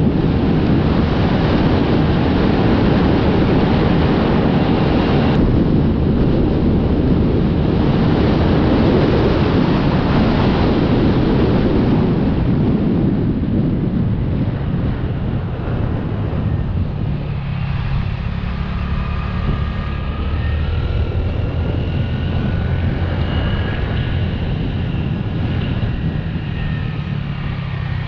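Wind rushing over the microphone on a small motorcycle at road speed. The rush eases about halfway through as the bike slows, and the engine's steady note comes through from about two-thirds of the way in.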